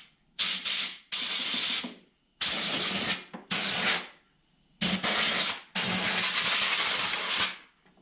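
Compressed-air blow gun blowing out a mower's battery compartment in six sharp bursts of hissing air, from about half a second to nearly two seconds each; the last and longest ends half a second before the close.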